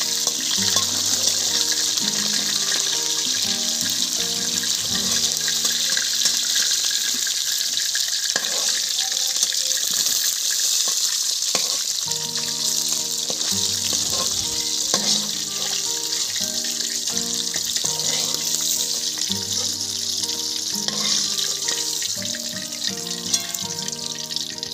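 Katla fish heads frying in hot oil in a steel wok: a steady sizzle, with a few clicks of a metal spatula against the pan. Background music plays over it.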